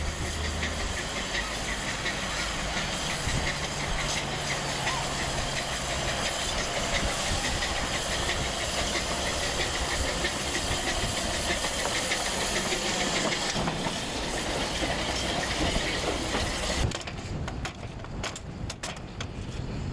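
Narrow-gauge steam locomotive hissing steadily as steam escapes from its open cylinder drain cocks while it moves slowly. After a cut near the end, a few sharp clanks and clicks of ground-frame levers being pulled.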